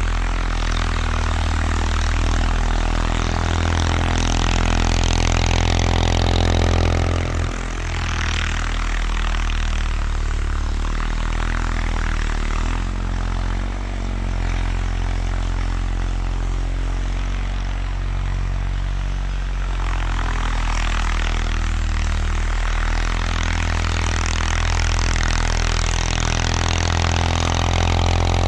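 1979 Bolens HT-23 garden tractor's 23 hp Kohler K582 opposed-twin engine running steadily under load, with a brief dip in the engine note about seven seconds in and again around fourteen seconds.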